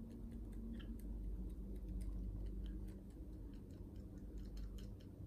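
A toothpick stirring a thick mixture in a small glass bowl, giving faint, irregular light clicks against the glass that come more often in the second half.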